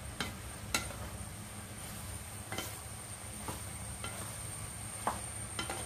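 Wooden spatula stirring jackfruit pieces in a pan of simmering aviyal, with about six sharp knocks and scrapes against the pan over a steady low simmering noise.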